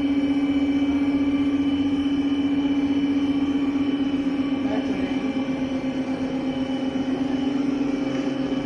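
An electric motor on the steam boiler and automatic mawa kettle setup running with a steady, unchanging hum.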